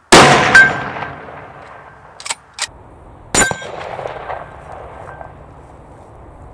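A shot from a .308 Savage Impulse Elite Precision rifle, echoing and dying away over about a second. It is followed by two quick metallic clicks and then, about three seconds in, a second sharp metallic clang with a shorter echo.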